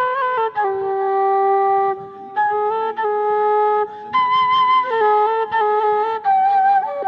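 Short wooden flute playing a Hadhrami zarbadi melody solo, in long held notes that step up and down, with brief breaks between phrases about two and four seconds in.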